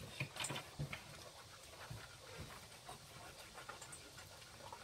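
Alaskan Malamute panting quietly, with a few light clicks in the first second.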